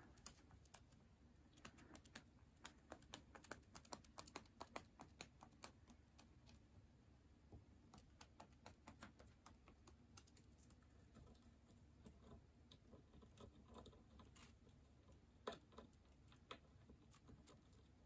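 Faint, irregular quick clicks and taps of a lutino cockatiel's beak gnawing at a wooden play stand, coming in short runs, with two louder taps near the end.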